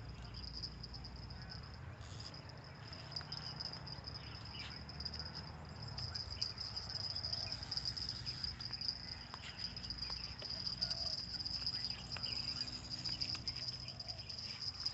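A steady high-pitched insect drone, with scattered faint clicks and rustles.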